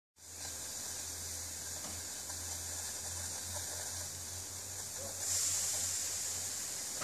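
Narrow-gauge steam tank locomotive 99 2324-4 standing with steam hissing steadily, over a low steady hum. The hiss grows clearly louder about five seconds in.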